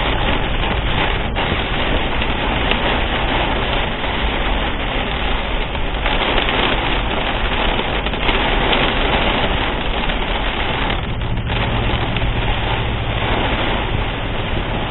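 Torrential downpour with hail, a dense, steady hiss of rain and pelting ice that does not let up.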